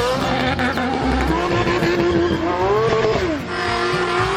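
Racing car engine sound effect: the engine revving, its pitch rising and falling several times.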